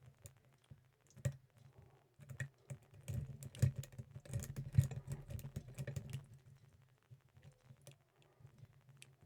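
Lock pick and tension wrench clicking and scraping in the keyway of an Ace 54541 solid-brass padlock during picking, with a denser run of rapid clicks in the middle.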